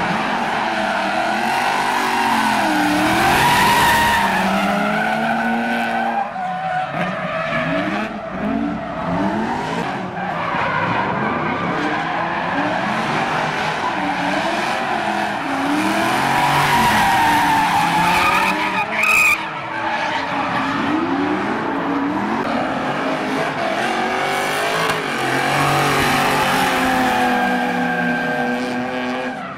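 Drift cars' engines revving up and down hard through one slide after another, over a constant hiss of tyres skidding on tarmac. A short high-pitched squeal stands out about two-thirds of the way through.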